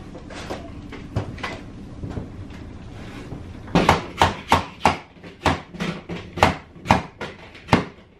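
Hammer driving nails into a wooden stud frame overhead. A few light taps come first, then from about halfway through roughly a dozen hard strikes, two to three a second.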